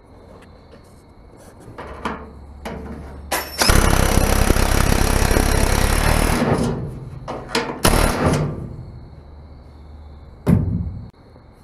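A cordless drill-driver runs a nut down a J-hook mounting bolt in an aluminium diamond-plate truck toolbox, a loud run of about three seconds starting about four seconds in. Sharp knocks and clunks of the tool against the metal box follow, one near eight seconds in and another near the end.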